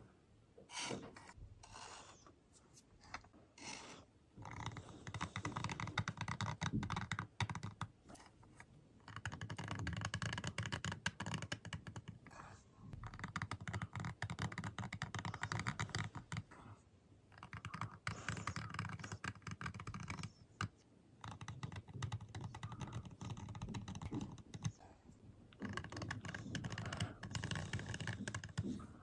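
A small flat-blade screwdriver tip scratching lines through the paint of a small painted square, making quick, packed scraping clicks. A few separate scratches come first, then spells of three to four seconds with short pauses between.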